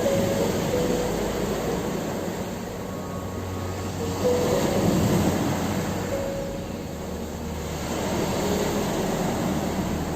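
Ocean waves breaking and washing on a shore, the surf swelling and ebbing in long surges about every four seconds. A few soft sustained music notes sound faintly over it.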